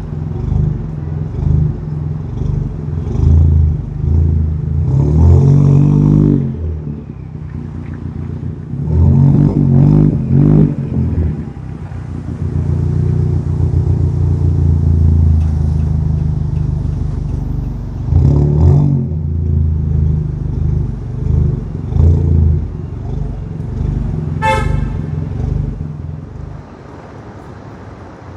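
Chevy Cruze engine and exhaust while driving, rising in several surges of acceleration between steadier stretches. A brief horn-like toot sounds a few seconds before the end.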